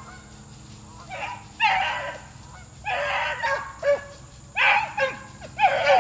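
A pack of beagles baying on a rabbit's track, several hounds giving tongue in repeated bursts with their voices overlapping, coming more often and louder in the second half.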